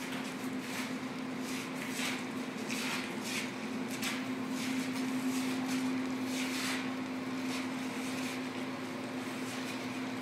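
A 1971 Mustang Fastback with its fenders and hood off being pushed by hand across a concrete shop floor: tyres rolling, shuffling footsteps and scattered scuffs and clicks, over a steady hum.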